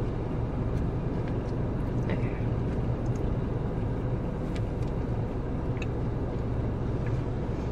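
Steady low hum of a car idling, heard inside the cabin, with a few faint clicks and small eating sounds as a cupcake is bitten.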